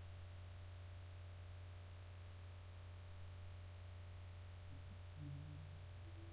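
A steady low hum over faint hiss: quiet room tone.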